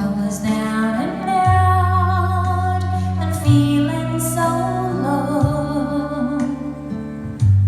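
Background music: a slow song with a woman singing over keyboard and bass accompaniment.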